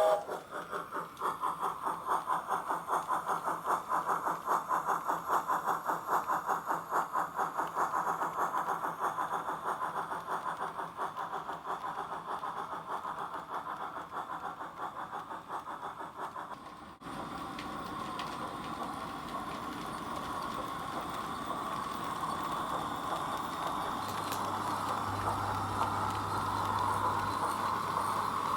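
Recorded steam-locomotive chuffing for a C12 tank engine, played from a sound box through a small speaker riding in a model freight wagon. It is a fast, even beat that slowly fades. About 17 seconds in it breaks off abruptly, and a steadier running sound follows and slowly grows louder.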